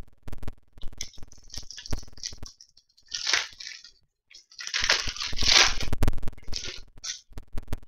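Hands tearing open a hockey card pack: the wrapper crinkles and tears in a short burst about three seconds in and a longer, louder one from about five to seven seconds, with clicks from the pack and cards being handled.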